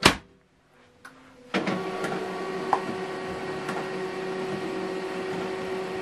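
A sharp knock, then about a second and a half in the HP LaserJet M234dwe laser printer's mechanism starts up and whirs steadily with a held tone.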